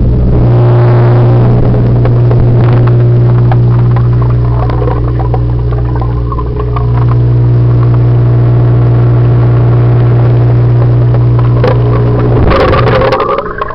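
Steady low hum of an aquarium pump motor, picked up by a camera submerged in the tank. Near the end the hum breaks up into splashing and gurgling water.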